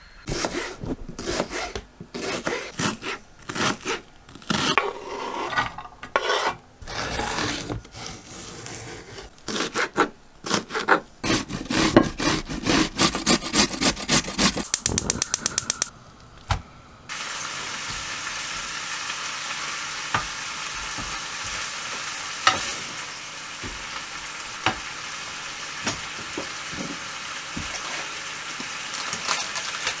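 Kitchen work with irregular knocks and scrapes, then a quick run of clicks about 13 seconds in. From about 17 seconds on, ground meat fries in a stone-coated frying pan on a gas burner with a steady sizzle and small crackles.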